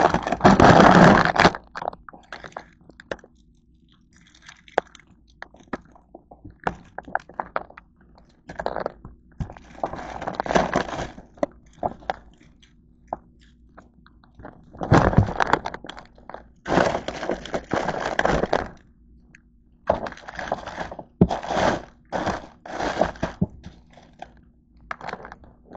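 Plastic bread bag and food packets crinkling and rustling as a hand rummages through them in a plastic bin, in bursts of a second or two with short pauses and small clicks between.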